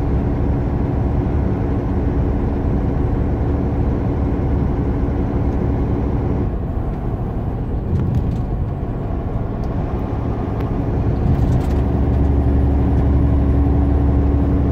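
Steady engine drone and road noise inside the cab of a heavy truck cruising on a highway, growing somewhat louder and deeper in the last few seconds.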